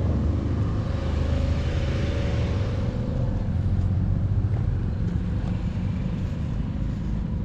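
Steady low rumble of a car driving, with no change in pace.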